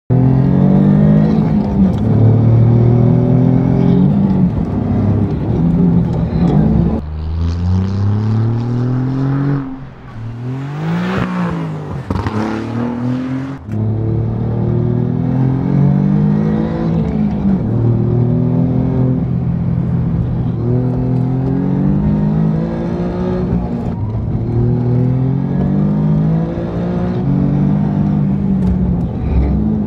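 Alfa Romeo Giulia twin-turbo V6 exhaust accelerating hard, the engine note climbing and dropping back again and again as it runs up through the gears. About ten seconds in there is a quieter stretch of a car passing by, its pitch rising and then falling.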